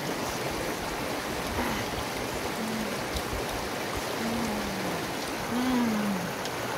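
Shallow river rushing steadily over rocks. Several short, low hums are mixed in, the eater's 'mm' sounds while chewing.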